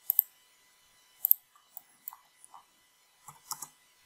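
Computer mouse buttons clicking: a quick double click at the start, a single click about a second later, then a few more clicks near the end.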